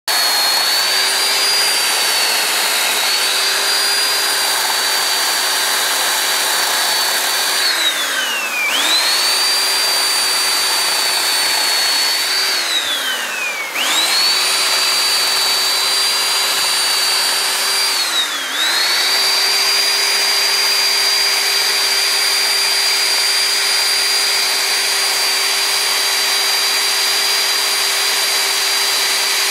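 Chainsaw with a Craftsman bar running at high speed while carving a wooden post; its engine note sags sharply and climbs back three times, about a third, half and two-thirds of the way through, then holds steady.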